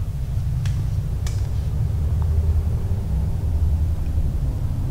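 A steady low rumble, with two faint light clicks about a second in, from small metal parts being handled at the engine's oil pump.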